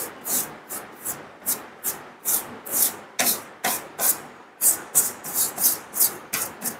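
Quick repeated rubbing or scraping strokes on the opened laptop, about three a second, coming a little faster in the second half.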